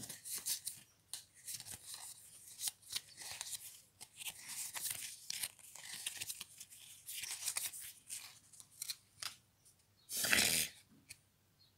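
Magic: The Gathering trading cards sliding and rubbing against one another as a hand-held stack is flipped through card by card: a run of short, scratchy swipes, with one longer, louder swish about ten seconds in.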